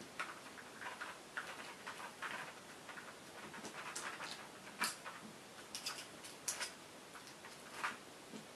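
Faint, irregular small metal clicks and scrapes as a tool works at the retaining clip of a VITA 5-pin euro cylinder lock being taken apart.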